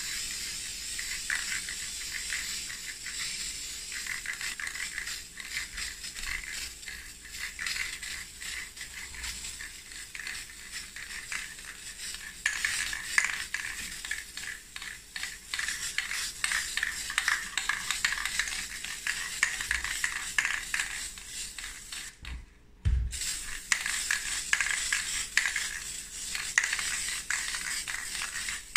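Aerosol spray-paint can hissing as black paint is sprayed in long passes, with a crackly edge to the spray. The spray stops for about a second around 22 seconds in, with a low thump, and then starts again.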